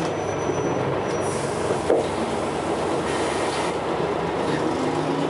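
Interior of a Scania L94UB single-deck bus under way: its diesel engine running loudly (thrash) with rattling noise, and one sharp knock about two seconds in.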